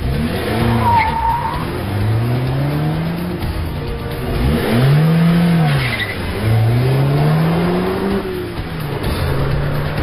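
Car engine revving hard as it accelerates, its pitch climbing several times as if through the gears, with a short tyre squeal about a second in, over background music.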